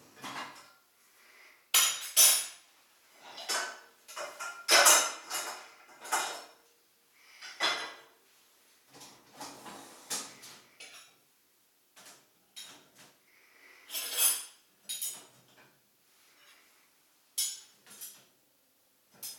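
Irregular clinks and clatters of hard objects knocking together, like dishes and cutlery being handled, with the loudest strikes about two, five and fourteen seconds in.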